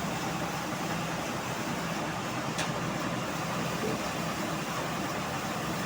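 Band sawmill running with a steady mechanical drone.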